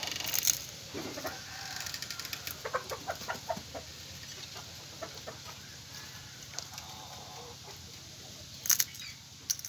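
Chickens clucking in short calls, clustered about two to four seconds in, with a few sharp clicks near the start and near the end.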